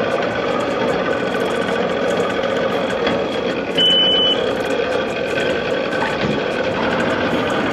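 Several bass-boat outboard motors idling together in a steady, dense mix. About four seconds in, a single short high-pitched beep sounds over them.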